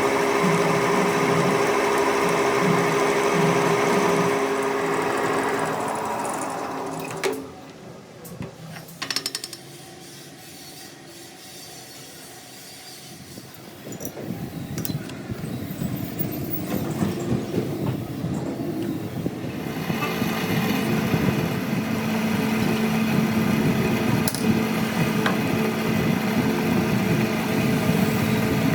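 Workshop machine running with a steady hum, stopping suddenly about seven seconds in; after a quieter stretch with a few clicks, machine noise builds again and runs steadily from about twenty seconds.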